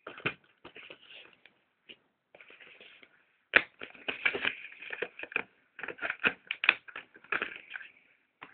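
A stuck cardboard backing card being picked at and peeled off a Blu-ray steelbook case: a run of irregular scratchy clicks and crackles, sparse at first and busier from about three and a half seconds in.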